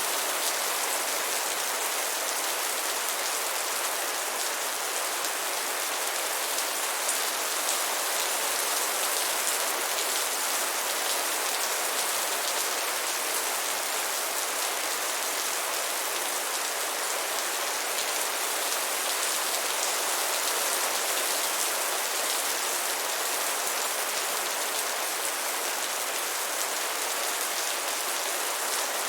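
Steady rain falling, an even hiss of many drops hitting a surface with no let-up and no thunder.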